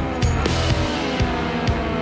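Background rock music with guitar and drums; a guitar line slides down in pitch about half a second in.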